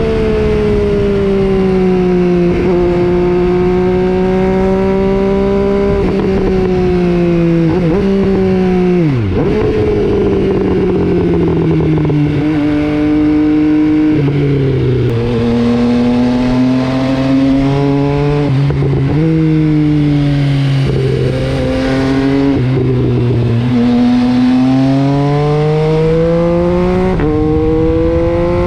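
MV Agusta Brutale 800's inline-three engine through an FM Projects aftermarket exhaust, pulling through the gears. Its pitch climbs and drops sharply at each upshift, several times, with a deep fall about nine seconds in as the throttle closes.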